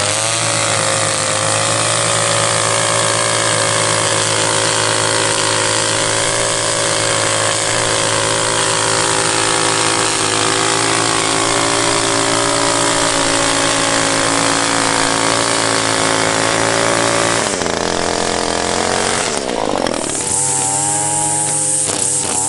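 Two-stroke gas string trimmer running at high throttle while its line edges grass along a sidewalk. Near the end the engine drops off briefly, then revs back up.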